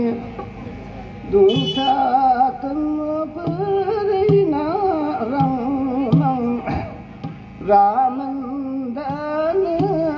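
A man singing a slow, wavering melody into a microphone, holding long notes, with two short pauses between phrases.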